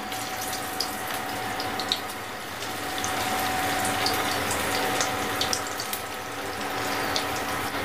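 Mutton chops in a thick spiced gram-flour batter sizzling as they deep-fry in hot oil in a kadhai, a steady hiss dotted with many small pops and crackles. A faint steady hum runs underneath.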